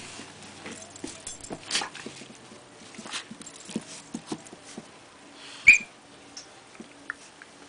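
An Australian shepherd–Labrador mix and a miniature dachshund puppy play-wrestling on carpet: scattered scuffling and small dog noises, then one sharp, high yelp from the big dog a little past halfway, the loudest sound.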